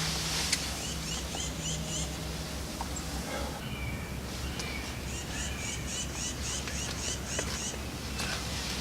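A songbird singing outdoors. A short run of quick repeated notes comes about a second in, a few softer whistled notes follow, then a longer run of about ten evenly repeated notes at roughly four a second.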